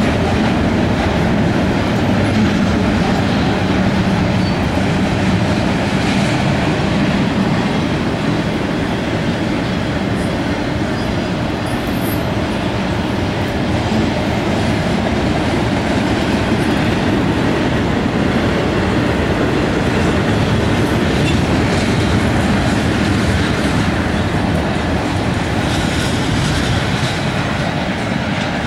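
CSX double-stack intermodal freight cars rolling past: a steady, loud noise of steel wheels running on the rails.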